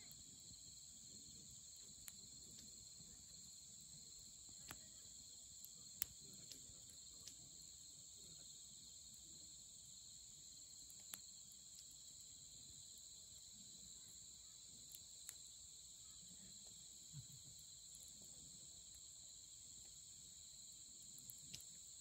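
A steady high-pitched chorus of night insects, with a wood campfire crackling in scattered single sharp pops, the loudest about six seconds in.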